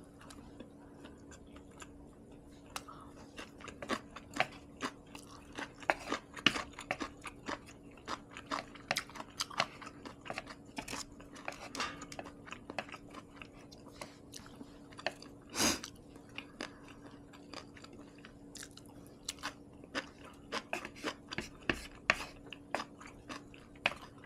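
Close-up chewing of a mouthful of rice and kimchi: irregular wet mouth clicks and smacks, with one louder, longer mouth sound about two-thirds of the way through.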